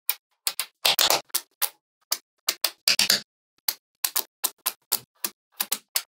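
Small magnetic balls clicking as they snap together and are pushed into place on a hard tabletop: about twenty sharp, irregular clicks, with quick clusters about one second and three seconds in.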